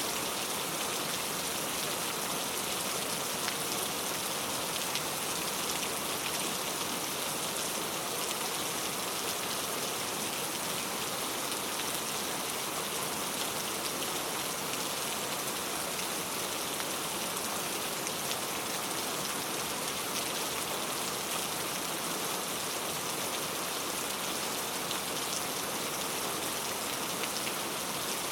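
Very heavy rain pouring steadily, with a dense patter of drops hitting surfaces.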